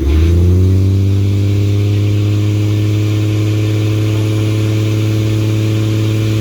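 Turbocharged 2JZ-GTE inline-six engine rising in revs right at the start, then held at a steady fast idle of just over 2,000 rpm to warm it up.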